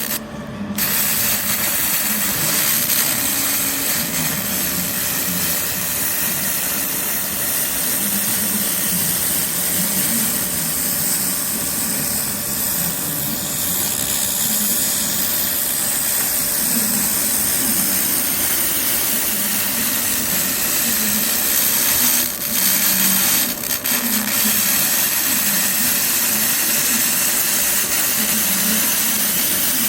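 A 200 W pulsed laser cleaning machine runs steadily with a loud hiss over a low hum while it ablates hardened oil deposits from a machine-tool surface. The hiss briefly cuts out twice about three-quarters of the way through.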